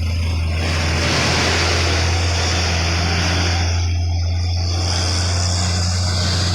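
Heavy diesel vehicle going by close: a steady low engine hum under a loud rushing noise that swells about half a second in, dips briefly past the middle, then comes back.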